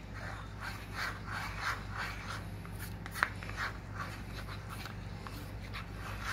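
Plastic spoon stirring cornflour and water in a plastic bowl, a soft scraping stroke about two or three times a second, with one sharp click about three seconds in.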